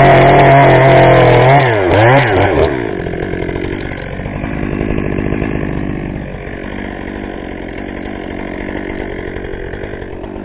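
Chainsaw running at high revs, its pitch dipping and rising twice about two seconds in, then dropping back to a quieter, lower-pitched idle about three seconds in.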